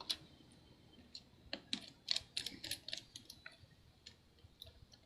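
Light, irregular clicks and ticks of a precision screwdriver and a tiny screw against the MacBook Pro's metal hinge and chassis as the screw is fitted. The clicks come thickest in the middle of the stretch.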